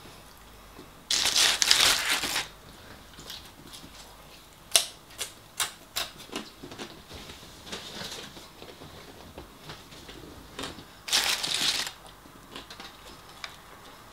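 Paper takeaway wrapping rustling in two short, loud bursts as a hand takes chips from it, with a run of small sharp clicks of chewing and mouth sounds in between.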